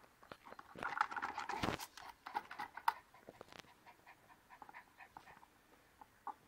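Yorkshire terrier panting and sniffing rapidly, busiest in the first three seconds, then fainter and sparser.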